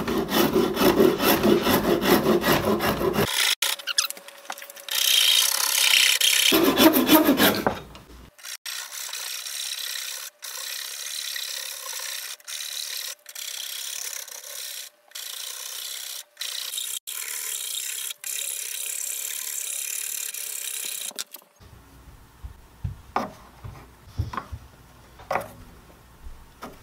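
Metal hand file stroking along a maple guitar neck clamped in a vise: coarse and loud at first, then a long run of quieter, even strokes with brief breaks. Near the end the filing stops, leaving a few light taps and handling sounds.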